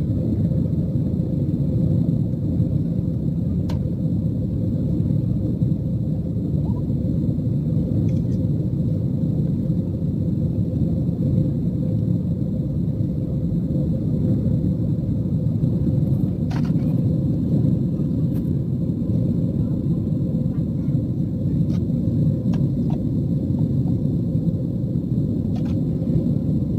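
Steady low roar of a jet airliner's engines and rushing air, heard inside the cabin while the plane climbs after takeoff. A faint steady hum sits above the roar, with a few faint clicks.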